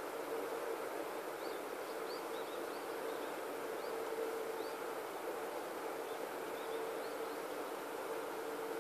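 Steady open-air background noise with a low hum, and faint, short high chirps of small birds scattered through the middle.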